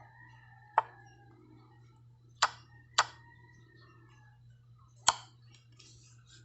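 Four sharp wooden knocks, irregularly spaced, of chess pieces set down on the board. Faint bird calls and a low steady hum sit beneath.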